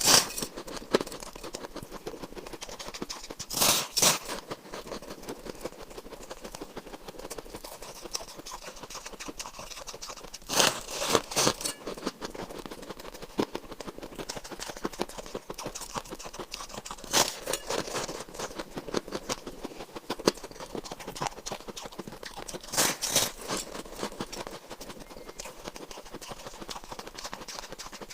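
Shaved ice being bitten and chewed: a loud crunching bite about every six seconds, with fine crackling chewing between.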